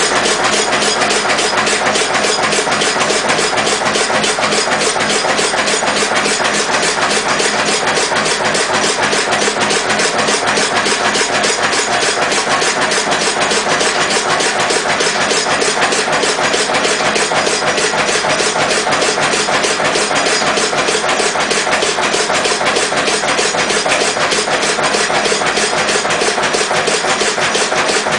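Single-cylinder Lister CS stationary diesel engine running steadily on waste vegetable oil, with a fast, even knocking beat.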